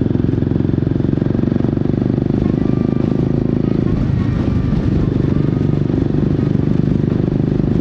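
Royal Enfield Guerrilla 450's single-cylinder engine running through an aftermarket Black Widow exhaust while riding, with a steady, fast-pulsing exhaust note. The note dips and breaks up briefly about four seconds in, then picks up again.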